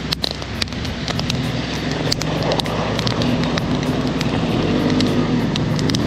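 Quad (ATV) engine running and getting steadily louder as it approaches, over the sharp crackles and pops of a wood campfire.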